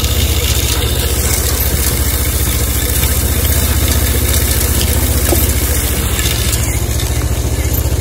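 A vehicle's engine running steadily, a low, even rumble.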